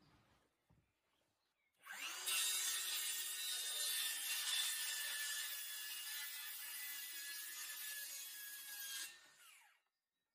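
Circular saw cutting through a wooden sheet: it starts about two seconds in with a steady high whine under the noise of the blade in the wood, runs for about seven seconds, then winds down and stops.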